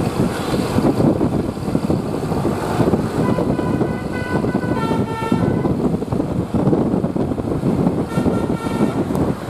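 Basuri-type bus telolet horn playing three short melodic phrases of a few stepped notes each, over a heavy vehicle rumble. The first phrase comes about three seconds in, the second about five seconds in, and the last near the end.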